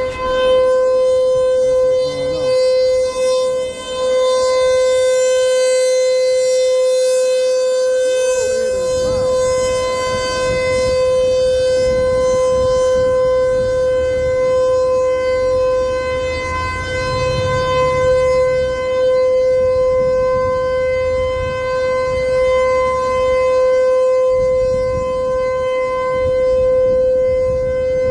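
ASC Tempest T-128 outdoor warning siren of a nuclear power plant sounding a steady test alert: one held, unchanging pitch with strong overtones, its loudness swelling and easing gently.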